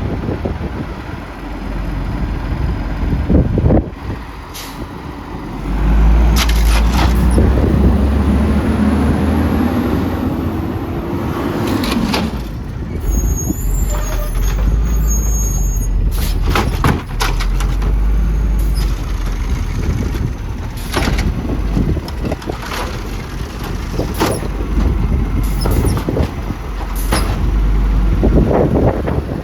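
Garbage truck at work: its engine runs and revs under a heavy low rumble, with a rising whine for a few seconds near the middle. Sharp clanks and bangs and air-brake hisses are scattered through it, and wind buffets the microphone.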